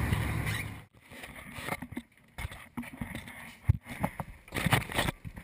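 Irregular light knocks and thumps of sea kayaks and gear being handled on a charter boat's deck. A steady rumble of boat and wind noise drops away about a second in.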